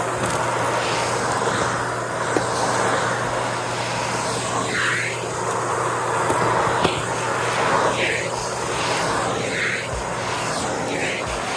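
Vacuum cleaner running, its pitch dipping and recovering every second or two as it is pushed back and forth, with a couple of sharp clicks of crunchy debris being sucked up.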